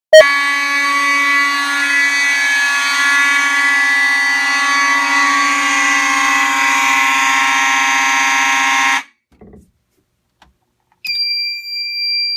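Several fire alarm notification appliances sounding together in one loud, steady, multi-pitched blare that starts suddenly and cuts off abruptly after about nine seconds. About two seconds later a single steady high-pitched electronic alarm tone starts near the end.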